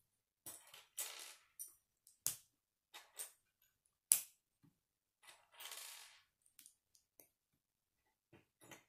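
Plastic K'nex pieces clicking as they are picked from a loose pile and snapped together, with the sharpest snap about four seconds in. Short rattles of loose pieces around one second and again around five to six seconds.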